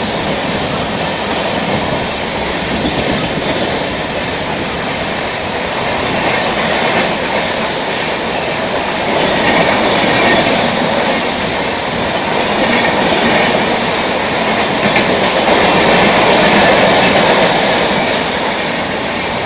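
Express train of LHB passenger coaches passing at full speed close by: a loud, steady rush of wheel and rail noise, with wheels clattering over rail joints.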